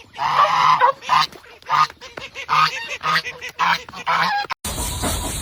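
Loud honking bird calls, about ten in a row at roughly two a second, that cut off abruptly near the end.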